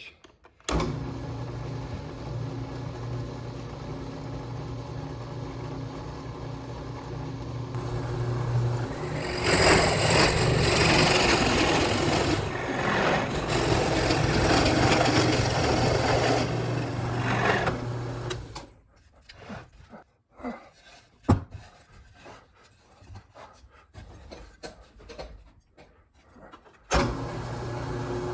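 Power drill motor spinning up and running steadily, then the bit boring into wood with a louder, rougher cutting noise for about eight seconds. Scattered knocks and clicks follow, and the drill starts again near the end.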